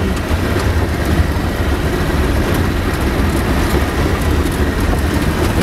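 Cabin noise of a VAZ-2101 'kopeyka' driving along a dirt road: its four-cylinder engine running under a steady low rumble of road noise, with faint clicks and rattles from the body.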